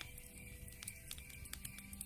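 Soft background music with long held tones, over the scattered crackles and pops of a burning wood fire.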